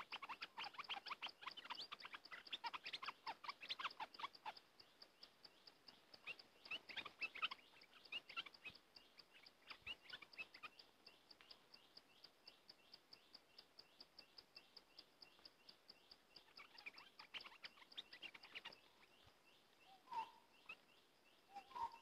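Bulbul calling in bursts of quick chattering notes: a flurry at the start, again a few seconds later, and once more near the end. Under it a steady, faint insect ticking goes on at about four ticks a second, and two short lower calls come near the end.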